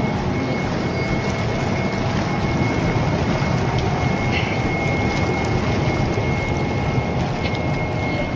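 Hot tub jets running: a steady rush of churning, bubbling water, with a thin steady high tone above it.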